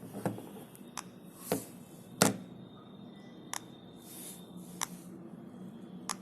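Sharp clicks at irregular intervals, about seven in all, the loudest about two seconds in, over a faint low hum, with a faint high steady tone in the middle. This is the weird sound from a faulty JioPhone.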